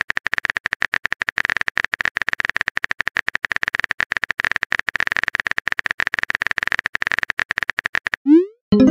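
Rapid, steady clicking of a chat app's typing sound effect. Near the end it stops and a short rising swoosh plays as the message is sent.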